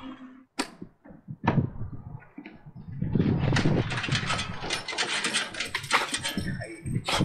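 A few sharp clicks of the motorhome's entry door opening, then from about three seconds in a quick, uneven clatter of dogs' claws and feet scrambling out over the metal entry steps.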